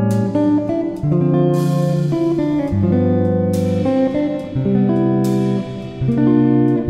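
Background music: a guitar-led tune with plucked notes changing every half second or so.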